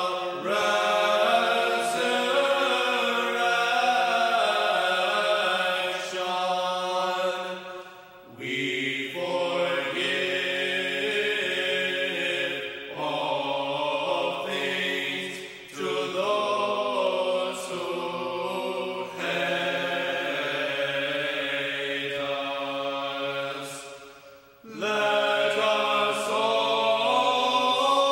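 Sung chant: voices holding long melodic phrases, with short pauses between phrases about 8, 16 and 24 seconds in.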